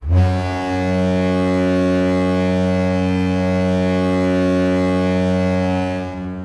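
San Jose Sharks goal horn sounding one long, steady, deep blast that starts suddenly and holds for about six seconds before trailing off near the end. It is the horn that signals a goal.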